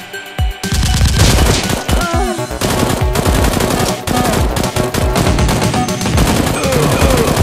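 Rapid automatic gunfire sound effects, starting about half a second in, laid over background music.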